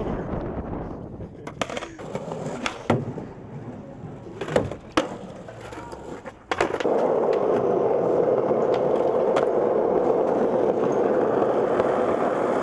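Skateboard on asphalt: several sharp clacks of the board over quieter rolling in the first half, then just past halfway a loud, steady rolling rumble of the wheels on rough pavement.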